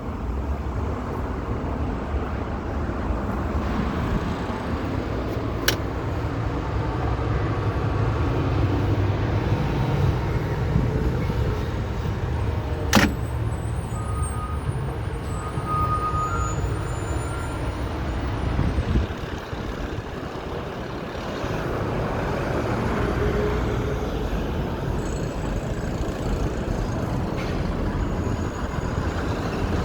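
City street traffic: cars and trucks running and passing in a steady low rumble, with a sharp clack about thirteen seconds in and a lighter click earlier.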